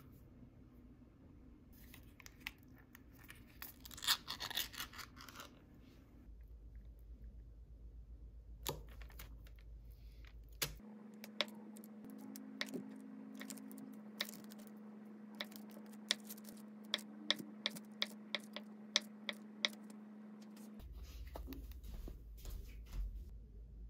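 Kitchen prep sounds: a can of Spam handled and opened with a rustle and scrape, then a chef's knife cutting the block of Spam, its edge tapping the cutting board in a run of sharp ticks about once or twice a second for several seconds. A low steady hum underneath.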